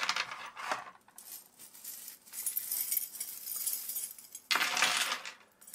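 Steel chains and spikes of Snowline Chainsen Pro boot traction spikes jingling and clinking as they are handled and pulled out of a plastic bag, with plastic crinkling, in two longer spells in the second half.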